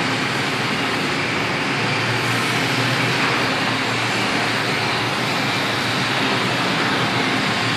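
Steady, even industrial noise of a steel fabrication shop floor, with no distinct strokes or breaks.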